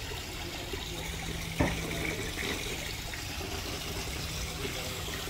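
Steady rush of running water, with a single sharp knock about a second and a half in.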